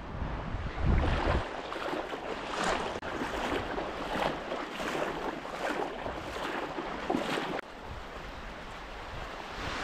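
Legs wading through shallow surf, a splash with each step about every three-quarters of a second, stopping suddenly about three-quarters of the way through as the wader steps out onto the sand. A rumble of wind on the microphone about a second in.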